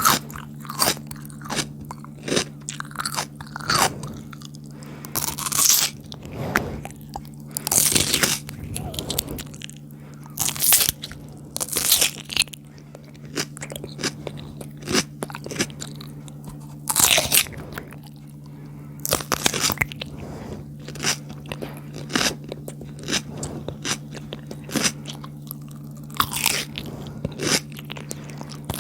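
Close-miked biting and chewing of crunchy Kurkure chips and raw cucumber: irregular sharp crunches, several a second in bursts, over a steady low hum.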